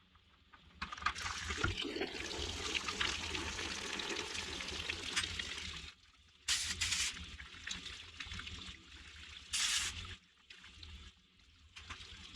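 Engine coolant draining out of a tractor-backhoe's engine block drain and splashing as it runs out. The steady flow stops sharply about six seconds in, and two short bursts of splashing follow.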